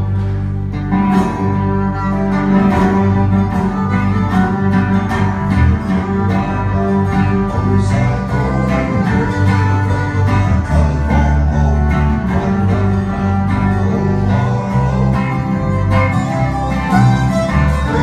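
Instrumental break in a country song: an acoustic guitar strums a steady rhythm while a resonator guitar played flat on the lap carries sustained, sliding melody notes.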